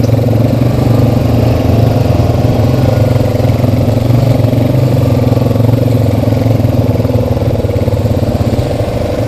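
Honda Rancher 420 ATV's single-cylinder engine running steadily as the quad rides along, easing off a little near the end.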